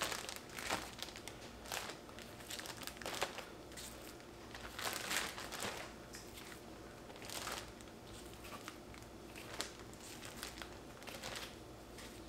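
A plastic Ziploc bag crinkling in irregular rustles as gloved hands stuff raw chicken thighs into it.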